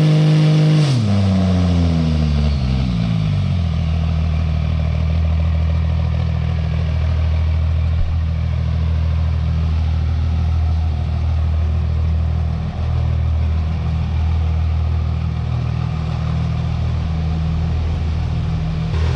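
Cummins inline-six diesel engine of a drag truck held at raised revs, falling back to idle in the first few seconds, then idling steadily.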